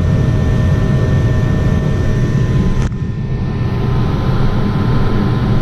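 Lennox ML193 gas furnace running: a steady rumble with a few thin, steady whining tones above it. A click comes about three seconds in, after which the sound is slightly quieter and duller.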